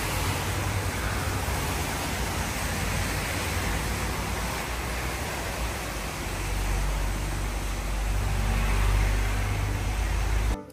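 Heavy rain pouring down in a steady hiss, mixed with road traffic; a deep rumble swells in the second half, and the sound cuts off abruptly near the end.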